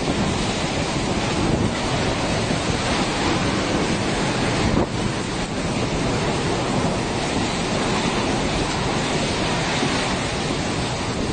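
Strong wind blowing steadily and buffeting the microphone in a loud, even rush of noise.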